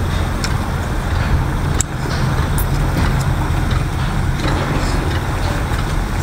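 Steady low engine hum, with scattered small clicks from shellfish shells being handled and eaten.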